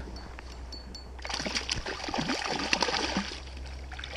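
Hooked brown trout thrashing and splashing at the surface of the river, starting about a second in, over the river's flow.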